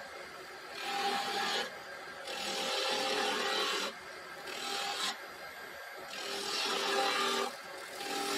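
A turning tool cutting a spinning wooden spindle on an Axminster AW355 wood lathe, giving a hissing scrape in repeated passes of about a second each. In the gaps between passes only the lathe's steady running tone is left.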